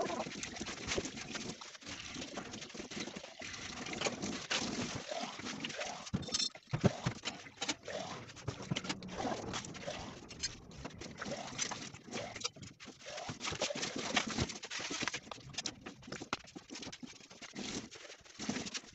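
Kitchen tap running into a stainless-steel sink while dishes and a plastic cup are rinsed by hand, with splashing and irregular clinks and knocks of the dishes.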